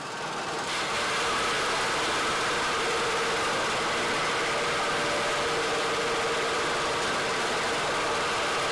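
Motorised enset decorticating machine running, building up over the first second and then holding steady as a green enset leaf sheath is fed into it, scraping the edible pulp from the fibre.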